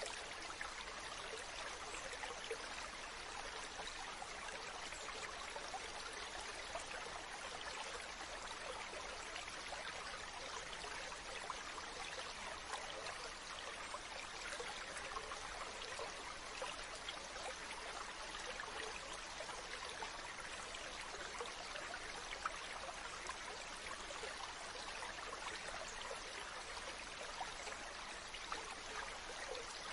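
Shallow stream running over rocks: a steady, unbroken rush of water with fine splashing and trickling.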